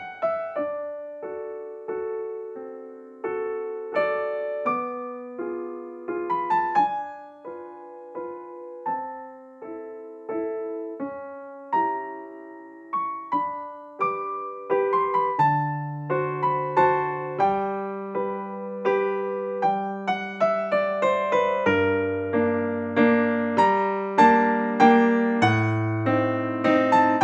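Background music: a slow piano piece of single struck notes that ring and fade, with deeper bass notes joining about halfway through.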